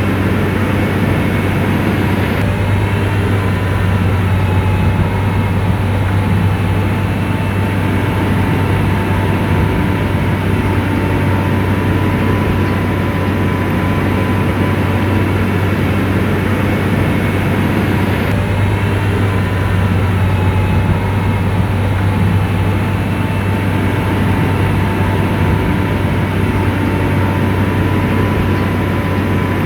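SDLG motor grader's diesel engine running steadily under load, with a deep, even hum.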